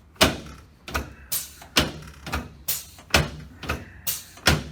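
A quick series of sharp knocks, about nine in all, roughly two a second.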